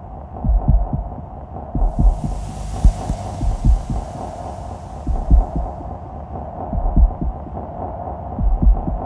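Experimental electronic ambient piece: a steady drone with deep low thuds recurring every second or two. A wash of high hiss swells in about two seconds in and fades out by about six seconds.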